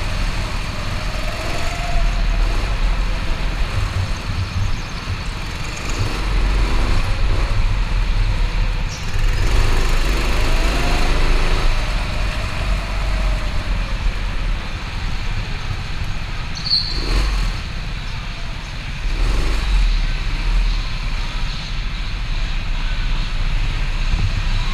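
Go-kart engine running under the rumble and rattle of an onboard camera as the kart laps, its pitch rising and falling several times. A brief high squeak comes about two-thirds of the way through.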